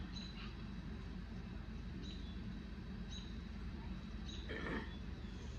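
A deck of tarot cards being handled and shuffled, with a brief rustle of cards about four and a half seconds in. Under it runs a steady low background hum, with a few short, high chirps about a second apart.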